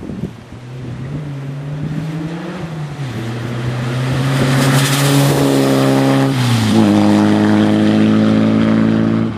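Škoda 120 rally car's rear-mounted four-cylinder engine pulling hard under throttle as the car approaches and passes. The engine note drops once about three seconds in, then falls again as the car goes by, with tyres hissing through wet slush at the loudest point. The sound cuts off abruptly near the end.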